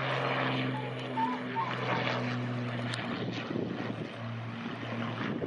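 De Havilland Mosquito's twin Rolls-Royce Merlin V12 engines running with a steady propeller drone, which wavers briefly a little past halfway.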